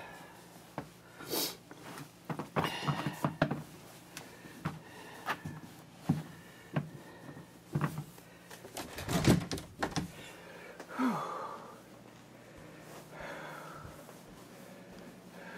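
Irregular knocks, thumps and rustling of someone moving about by a boot tray and handling the camera, over a faint steady hum. The knocks thin out about eleven seconds in.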